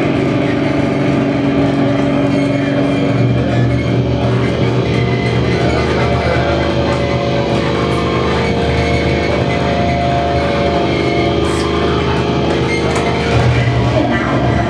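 Loud live experimental noise/drone music from a tabletop electronics rig: a dense wall of noise with sustained droning tones. A low hum swells about three seconds in and shifts again near the end, with a few sharp high clicks late on.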